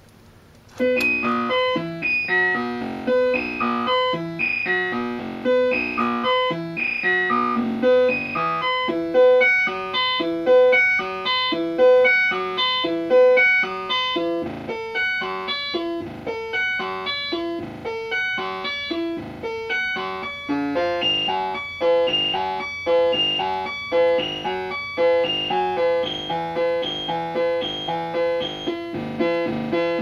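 Modular synthesizer voice clocked by a DIY 4-knob step sequencer, playing a quick, even run of short pitched notes with one note recurring throughout. It starts about a second in, and the pattern shifts to higher notes about two-thirds of the way through as the sequencer's knobs are turned.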